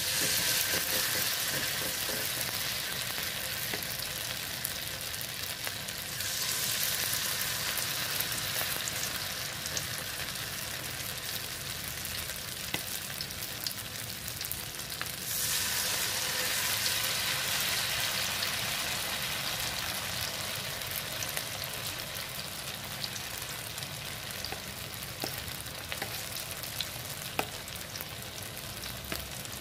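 Bakwan vegetable-fritter batter deep-frying in hot oil: a loud sizzle that flares up each time more batter goes in, at the very start, about six seconds in and again about fifteen seconds in, easing off in between, with scattered small crackles.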